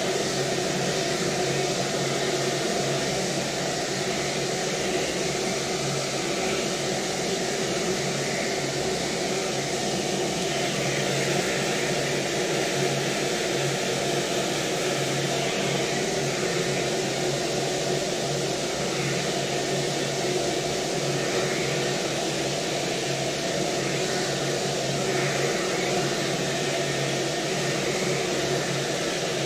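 Hose-type hair dryer running steadily: a continuous rush of blown air over a steady motor hum.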